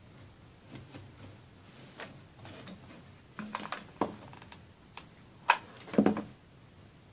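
Scattered light taps, clicks and rustles of hands working with hot-glued rope and a small porcelain piece, with two sharper knocks about five and a half and six seconds in.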